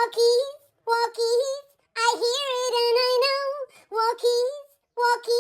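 A high, child-like singing voice performing a parody song in short phrases with brief gaps between them, the longest one in the middle.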